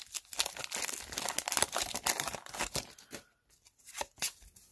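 Paper wrapper of a hockey card pack crinkling and tearing as it is opened, a dense crackling for about three seconds. After that come a few soft clicks and rustles as the loose cards are handled.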